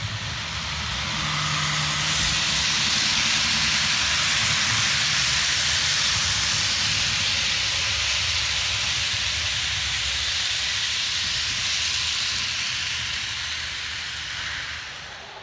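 Model passenger train rolling past close by: a steady rushing hiss of its wheels on the rails, with a low rumble. It swells over the first couple of seconds and fades away near the end as the train passes.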